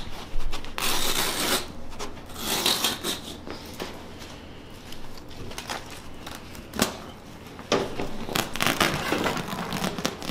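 Wall-to-wall carpet being pulled up off the floor by hand, in several tearing, rustling pulls, with a single sharp click about seven seconds in.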